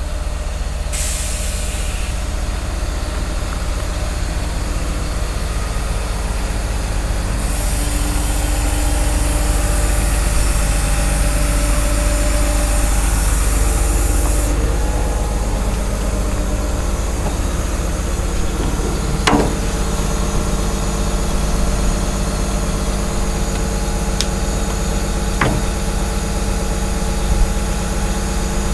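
Caterpillar 321D LCR excavator's diesel engine running steadily, with a long hiss of air for several seconds and two sharp metal clanks later on as the machine settles on the trailer.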